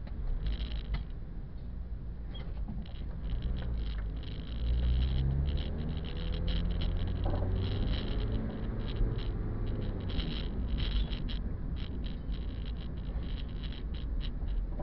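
Car engine and road rumble heard from inside the cabin while driving in slow traffic, with frequent light rattles throughout.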